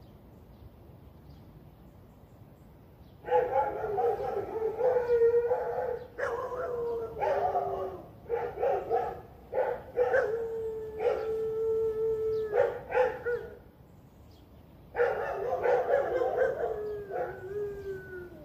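A dog howling in two long bouts, the first from about three seconds in and the second after a short pause. Each bout breaks into shorter calls and sags in pitch at the end.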